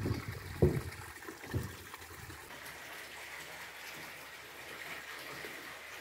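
Spring water pouring steadily from a short pipe spout onto stones, with a few low thumps in the first two seconds.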